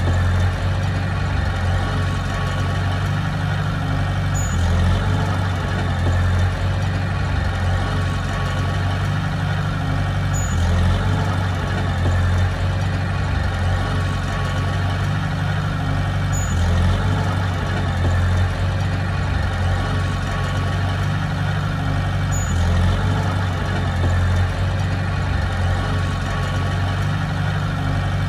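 Heavy diesel engine of earthmoving equipment running steadily at a low, even pitch, with a slight change in the sound recurring about every six seconds.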